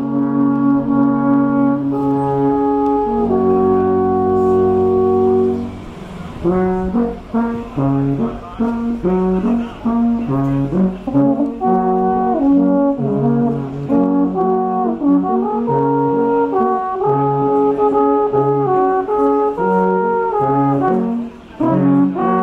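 Three alphorns playing together in harmony: long held chords for the first few seconds, then a moving tune of shorter notes, with a brief break near the end.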